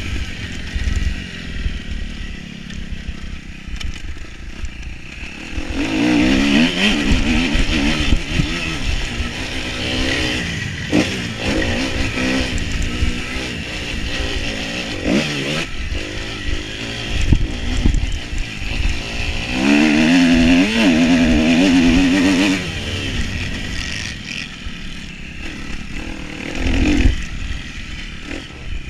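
Motocross dirt bike's engine revving up and down as it is ridden hard round a dirt track, its pitch rising and falling with the throttle and gear changes. It is loudest in two stretches of hard throttle, about six seconds in and again about twenty seconds in.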